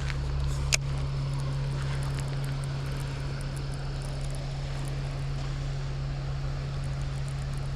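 A steady low mechanical hum over faint background noise, with one sharp click about three quarters of a second in.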